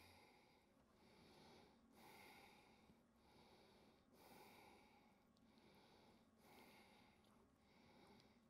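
Near silence: room tone with faint, regular breaths every second or two.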